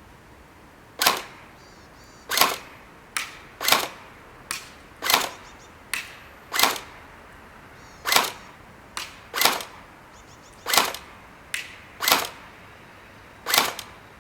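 Tokyo Marui AA-12 electric airsoft shotgun firing about ten single shots, one every second and a half or so, each a sharp crack. Fainter cracks fall between some of the shots.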